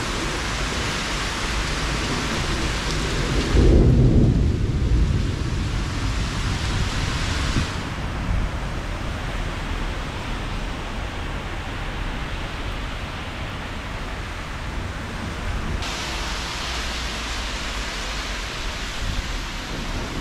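Rain falling steadily, with a loud low rumble of thunder breaking in about four seconds in and rumbling on for a few seconds under the rain.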